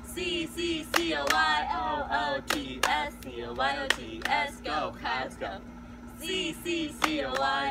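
Two cheerleaders chanting a rhythmic spelled-out cheer together, broken up by sharp hand claps.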